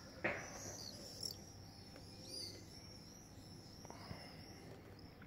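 Swifts screaming as they fly over: faint, shrill, high-pitched calls repeating on and off, with a slightly louder call about a quarter of a second in.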